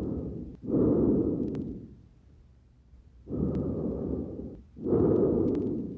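Lung sounds of a patient with pneumonia heard through a stethoscope over the front of the chest: two breaths, each a softer inhale running straight into a louder exhale, with a short pause between them. A few brief crackles sound late in each breath.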